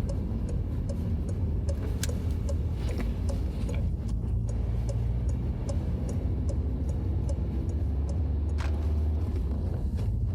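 Cabin sound of a Peugeot 308's 1.6 HDi diesel car cruising in fourth gear: a steady low drone of engine and winter tyres on the road. A light regular ticking runs over it, about two to three ticks a second.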